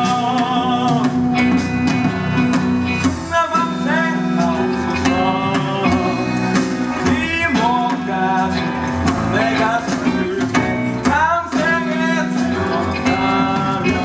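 Male singer performing a musical-theatre song live over band accompaniment. The first few seconds are instrumental; the voice then comes in with sung phrases.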